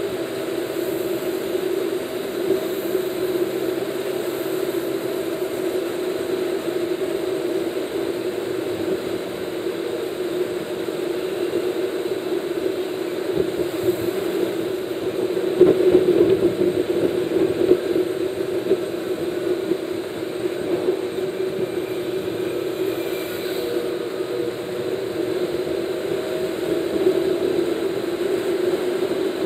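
Steady road and engine drone heard from inside a car cruising at highway speed, growing briefly louder about halfway through.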